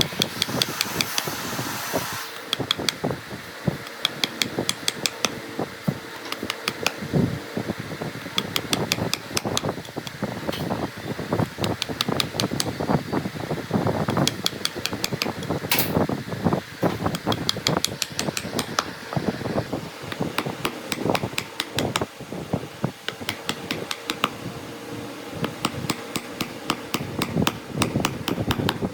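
Woodworking hand-tool work: many quick taps and knocks, often in rapid runs, over a steady hum.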